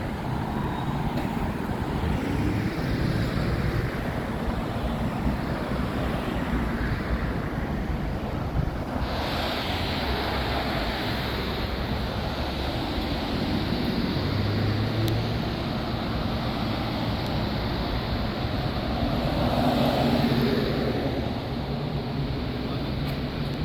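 Steady road traffic noise from vehicles passing on a busy street, swelling a little about twenty seconds in as a vehicle goes by.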